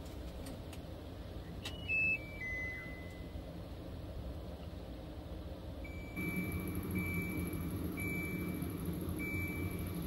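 Electronic beeps from a HAVA R01 countertop dishwasher: a short falling chime of three or four tones about two seconds in, then from about six seconds a beep about once a second over a low steady hum. This is its alert that the water tank is empty.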